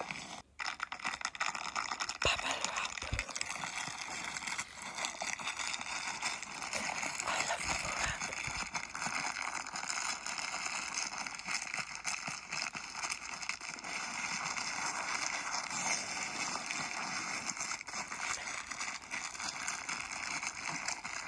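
Bubble wrap being crinkled and rubbed between the hands close to the microphone: a dense, continuous crackling made of many fine clicks.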